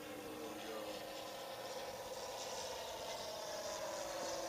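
Radio-controlled model warplane in flight, its onboard Mr RC Sound speaker playing a simulated piston aircraft engine. The engine note slowly falls in pitch and grows a little louder.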